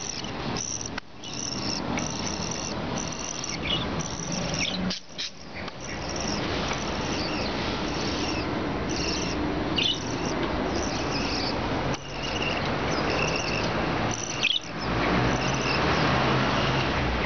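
Small cage birds chirping: short, high chirps repeated every second or so over a steady background hiss.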